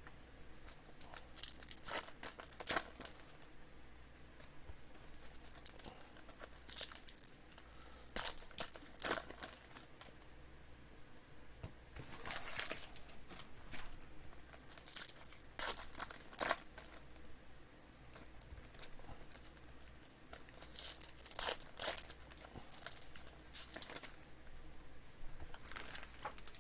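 Trading-card pack wrappers being torn open and crinkled, in short bursts every few seconds.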